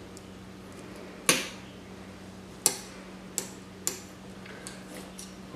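Knife blade clicking against a granite countertop while slicing deer heart: several sharp clicks, the loudest a little over a second in, over a low steady hum.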